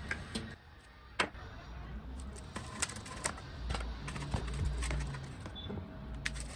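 Scattered light clicks and taps as a cut foam wing core and tools are handled on a workbench, over a low steady hum.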